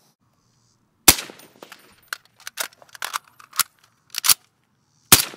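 Suppressed M14 EBR (Mk 14) rifle in 7.62x51 NATO firing from a bipod. There are loud sharp reports about one second in and near the end, with a run of lighter clicks and knocks between them.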